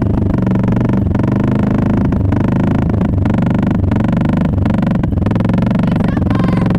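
1976 Honda XL350's single-cylinder four-stroke engine running as the bike rolls along at low speed, its pitch rising and falling with the throttle.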